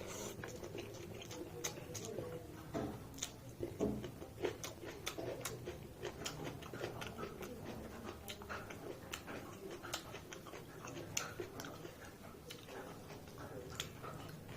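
Close mouth sounds of someone eating mutton and rice: chewing and lip smacking, with many short wet clicks scattered irregularly throughout.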